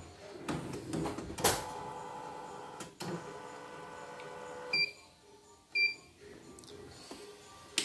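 Computerised embroidery machine stitching a test design, its motor whirring steadily with a couple of sharp clicks. The machine stops about five seconds in, then gives two short electronic beeps about a second apart. This is a test run after a repair for messy stitching.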